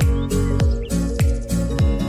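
Music with a steady electronic beat: a deep kick drum that drops in pitch, about every 0.6 seconds, with sharp percussion hits between and held tones.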